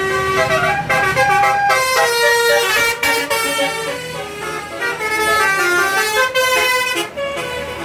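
Bus 'telolet' horn, a multi-tone musical air horn, playing a tune of quickly stepping notes with several tones sounding together. The tune breaks briefly about three seconds in and again near the end.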